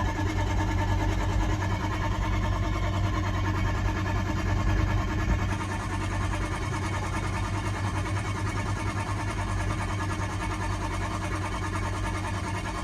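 A 6.0-litre engine being cranked over on the starter without catching, a steady mechanical churn: a no-start condition. It drops slightly in level about five and a half seconds in.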